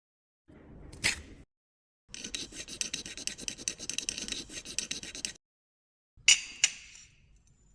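Short bursts of scraping and clicking from hand work on parts: a brief burst with one sharp click, then about three seconds of rapid scratchy strokes, then two sharp clicks close together.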